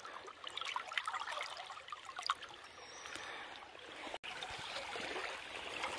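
Shallow creek water running and trickling, with small splashes as a trout held in the current is let go. The sound cuts out for an instant about four seconds in.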